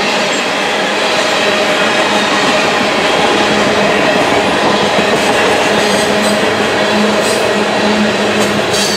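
Freight train tank cars rolling steadily past close by: the continuous noise of steel wheels running on the rails, with a few brief high-pitched squeaks in the second half.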